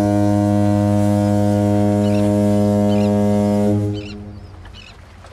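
A foghorn sounds one long, steady low blast that cuts off about four seconds in and dies away, with a few high bird calls over it.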